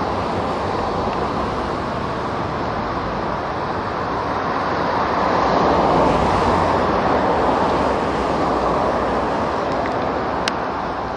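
Single-engine propeller plane at full takeoff power. The engine noise builds to its loudest about six seconds in as the plane lifts off, then eases a little as it climbs away.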